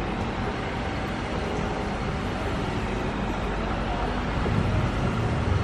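Steady mechanical rumble and hiss with no distinct events, the low rumble growing louder about three-quarters of the way through.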